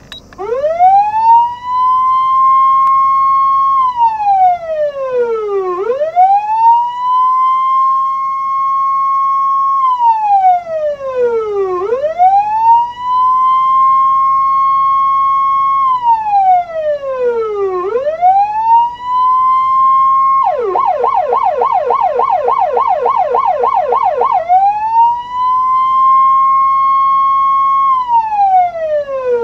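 Osaka Siren MK-9 TSK-S electronic siren sounding the same tone as the TSK-102S 100 W siren fitted to Japanese fire engines. It is a loud wail that rises quickly to a high note, holds it for about two seconds, then slides down, repeating about every six seconds. About two-thirds of the way in it switches for a few seconds to a fast warble of three or four pitch swings a second, then returns to the slow wail.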